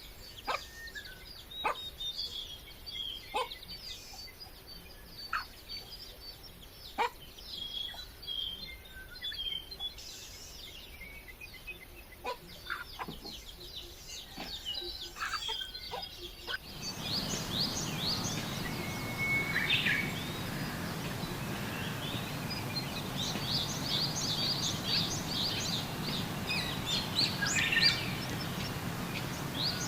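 Birds chirping and calling, with scattered sharp clicks through the first half. About halfway through, a steady noisy background sets in and dense, rapid chirping runs over it.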